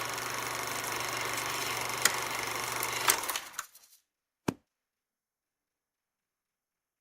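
Film projector running with a steady mechanical whir, a low hum and scattered ticks, then winding down and stopping about three and a half seconds in. A single sharp click follows about a second later.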